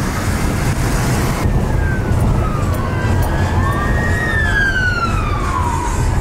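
A siren wailing in slow rising and falling sweeps, starting about a second and a half in, over the steady rumble of road noise inside a moving car.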